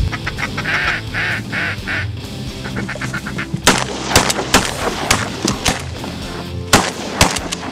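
Rapid quacking of a mallard-style call in the first seconds, then a volley of shotgun blasts from several guns firing at passing ducks, a quick flurry about halfway in and a couple more shots near the end.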